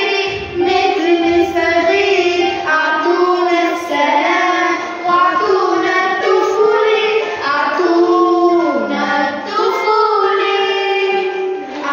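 Two girls singing a song together, their voice lines rising and falling in held phrases with short breaths between them.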